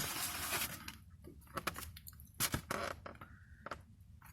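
Takeout food container being handled and opened: a rustle, then a few sharp clicks and scrapes with a brief squeak.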